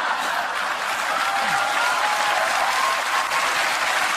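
Live comedy audience applauding a joke, even and sustained.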